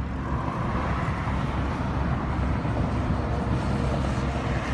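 Road traffic passing on a busy highway: steady tyre and engine noise of cars going by.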